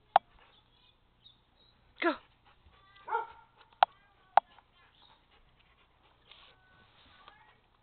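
A dog giving a few short, sharp barks and yips, one of them falling in pitch, spread over the first half with quiet between them.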